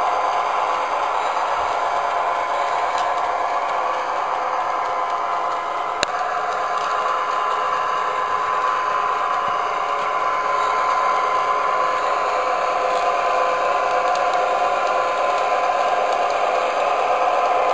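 Soundtraxx Tsunami TSU-750 sound decoder playing a twin EMD 567 diesel engine sound through a small laptop speaker, running steadily with a thin sound that has little bass. One sharp click about six seconds in.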